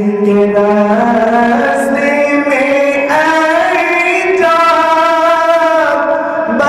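A man's voice singing a naat in long, drawn-out held notes without distinct words, the pitch stepping upward through the first few seconds.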